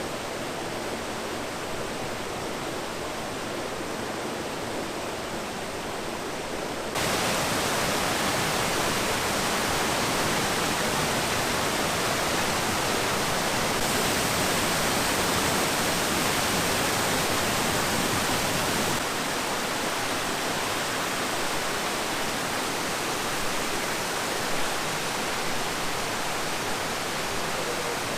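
Waterfall water rushing in a steady, dense roar. It jumps abruptly louder about seven seconds in and drops back a little later on.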